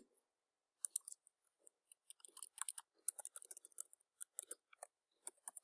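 Faint, irregular clicks of a computer mouse and keyboard keys while a file is renamed.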